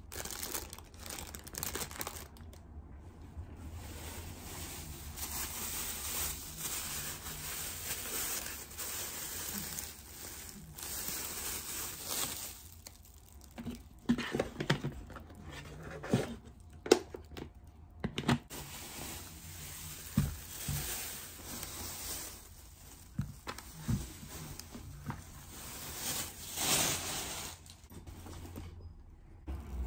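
Thin plastic shopping bags crinkling and rustling as groceries are unpacked onto a table, with a few knocks of items being set down in the middle.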